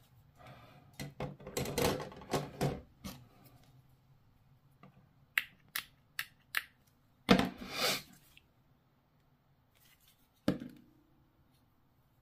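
Small plastic miniature parts being handled and fitted together by hand: scattered rustling and rubbing, several sharp little clicks and a short scrape.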